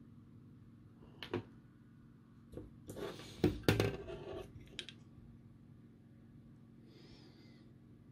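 Handling noise: a light click about a second in, then a cluster of knocks and plastic clatter about three to four seconds in as a calculator circuit board fitted with plastic keycaps is picked up and turned in the hands.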